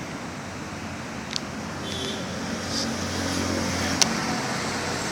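Outdoor traffic noise with a low vehicle engine hum that swells a little about two and a half seconds in, and two sharp clicks.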